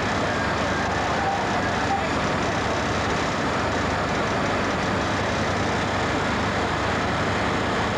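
Steady, unbroken noise of fire apparatus engines running at the scene, the level holding constant with no change in pitch.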